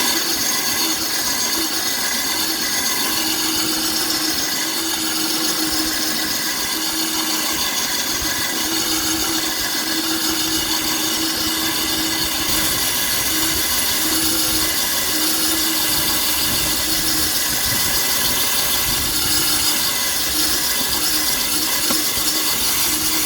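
Drill spinning a coring bit that grinds through ceramic tile, kept wet with water, nearly through the tile. A steady motor hum runs under a continuous high-pitched grinding hiss.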